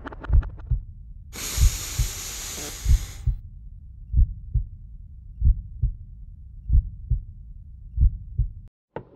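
Heartbeat sound effect: paired deep thumps, lub-dub, repeating about every 1.3 seconds. Soon after it starts, a hissing rush of noise runs for about two seconds and stops abruptly. The sound cuts out completely just before the end.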